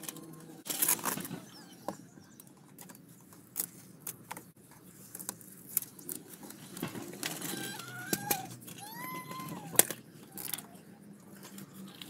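Handling noise from fitting an adhesive-backed carbon-fibre leather anti-kick pad onto a car door panel: rustling, light taps and clicks, with a few short squeaky tones partway through.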